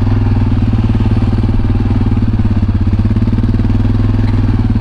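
A motor vehicle's engine running steadily, heard from the vehicle being ridden in: a low, even drone with a fast, regular pulse.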